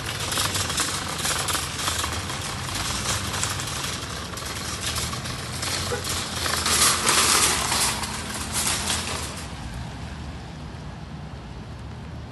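A wire shopping cart rolling over rough asphalt, its wheels and basket rattling in a dense, gritty clatter. The rattle grows loudest around seven seconds in, then drops to a quieter hiss about nine and a half seconds in.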